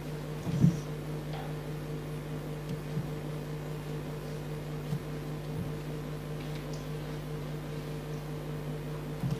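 Room tone: a steady low electrical hum, with one soft knock about half a second in and a few faint clicks.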